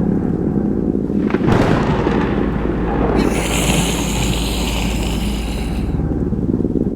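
Heavy, continuous rumbling like thunder, with a sharp crack about a second and a half in and a hiss in the high range from about three to six seconds in.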